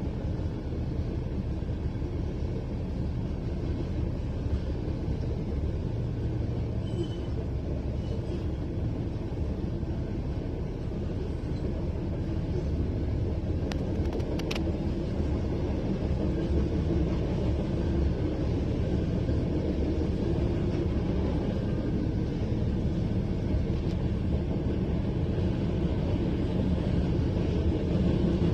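Freight train of covered hopper cars rolling past: a steady low rumble of wheels on the rails, a little louder in the second half.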